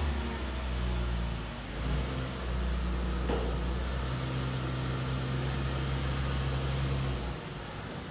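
2019 Ram 1500 Classic pickup's engine running low and steady as the truck creeps forward up onto plastic drive-on ramps. It pulls a little harder from about four seconds in and eases off about seven seconds in.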